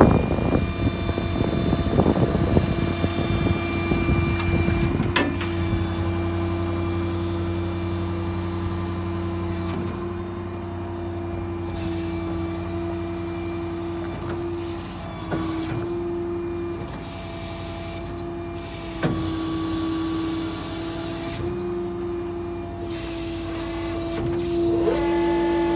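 Ford F-550 crane truck's 6.7 Power Stroke diesel running with a steady whine that steps slightly up and down in pitch as the load shifts, and a few sharp clicks. The opening seconds are louder and rougher.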